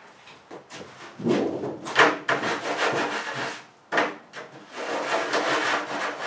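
Harsh scraping and rubbing as material is worked against the school bus's inner side wall below the windows, in two long strokes, each opening with a sharp scrape.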